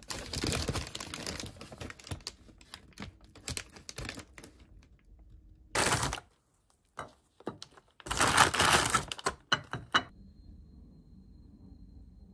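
Crinkling and rustling with scattered clicks, coming in irregular bursts; the loudest burst lasts about two seconds near the end, and it all stops about ten seconds in.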